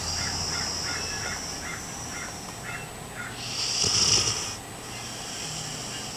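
A sleeping dog snoring: short faint sounds repeating about twice a second, then one louder snore lasting about a second, a little past the middle.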